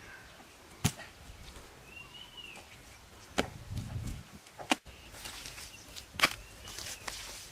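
Four sharp, irregularly spaced strikes, as of a hand tool chopping or hitting, with a bird chirping faintly in between.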